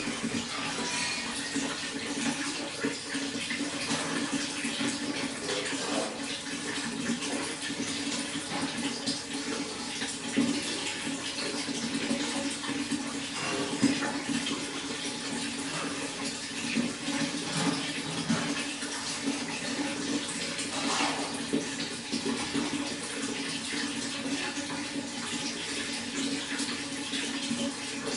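Water running and splashing steadily, a continuous trickling rush with small irregular splashes throughout.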